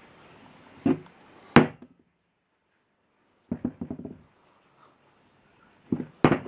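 Hard objects being handled and set down: two sharp knocks, the second the loudest, then two short bursts of clattering knocks.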